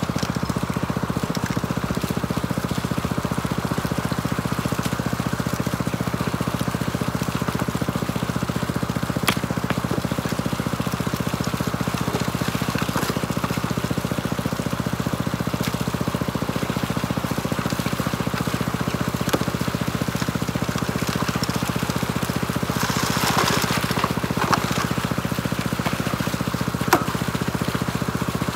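Small engine-driven water pump running at a steady speed, with water rushing through a Gold Hog Piglet high banker. A few sharp clicks are heard, and there is a brief louder rush late on.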